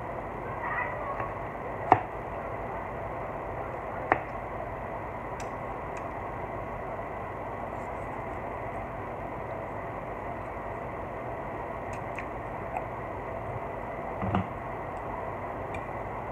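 A person eating with a metal fork from a glass dish: the fork clicks sharply against the glass twice, about two seconds and about four seconds in, with a few fainter eating noises over a steady background hiss.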